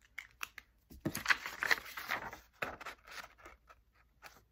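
A couple of light clicks, then a sheet of drawing paper rustling and crinkling as it is handled and held up.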